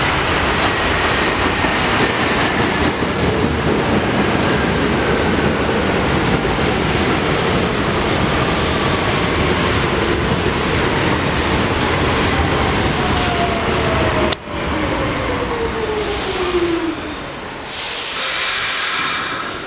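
R46 subway train arriving and braking into a station. Its traction motors whine in a single tone that falls slowly from high to low as the train slows, over a steady loud rumble of wheels on rail. There is a sharp click about two-thirds of the way in and a high squeal near the end as it comes to a stop.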